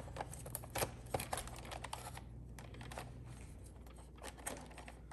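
Light, irregular clicks and ticks of a Phillips screwdriver and hands working a screw out of a Roomba's plastic underside, thinning out towards the end.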